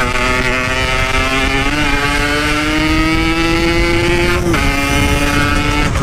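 Yamaha RX-King's single-cylinder two-stroke engine running hard at speed, its buzzing pitch climbing slowly. About four and a half seconds in it breaks briefly and drops in pitch. The rider takes the engine's faltering for a worn-out spark plug.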